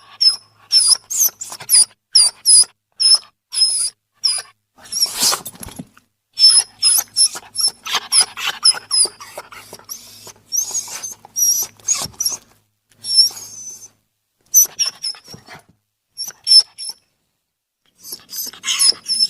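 Animal sound effect: a rapid series of short, very high-pitched squeaks and yips in quick bursts, broken by brief gaps and one longer pause near the end.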